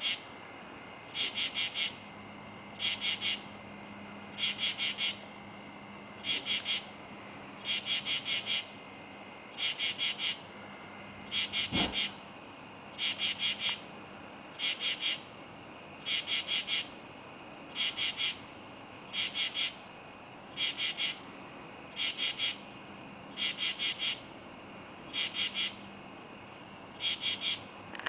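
Katydid calling over and over: short rasping calls of two to four quick pulses, one about every one and a half to two seconds, over a steady high chorus of other insects. A single low thump about midway.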